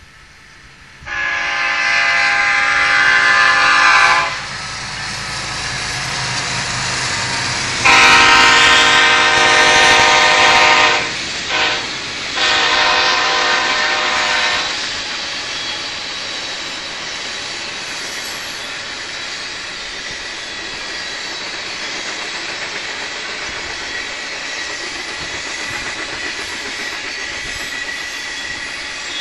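BNSF freight locomotive's multi-note air horn blowing a long blast, a second long blast, a short one and a final long one, the pattern of a grade-crossing signal. Then the freight cars, tank cars among them, rumble steadily past on the rails.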